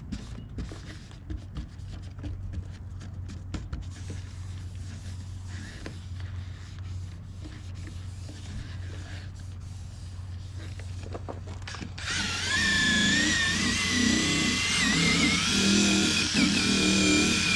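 Faint handling and rubbing noises over a low hum, then about twelve seconds in a handheld drill with a foam polishing pad starts up loudly. Its motor whine wavers in pitch as the pad buffs polish into the plastic headlight lens.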